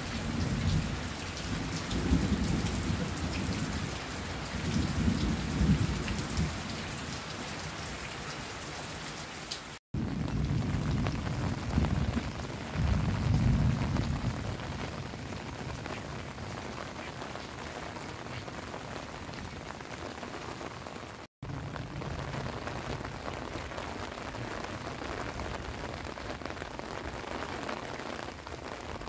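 Heavy rain falling steadily, with long low rumbles of thunder in the first few seconds and again about ten seconds in. The sound drops out for an instant twice.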